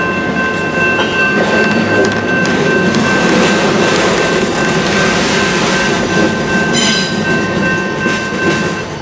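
Freight cars rolling past with a rumble of wheels on rail and a steady high wheel squeal from flanges on the curve of a wye. The squeal stops and the sound drops off near the end as the last car clears.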